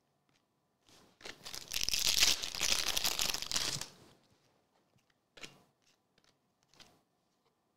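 Foil wrapper of a Chrome trading card pack being torn open, a crinkly tearing for about three seconds, followed by a couple of faint clicks of cards being handled.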